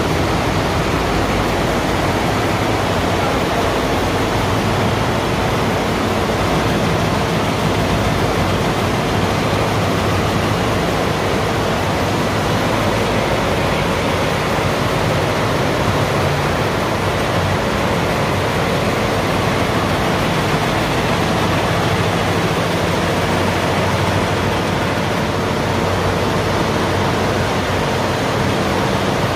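Steady, unbroken machinery noise of an embroidery factory in production, an even rush with a faint low hum underneath.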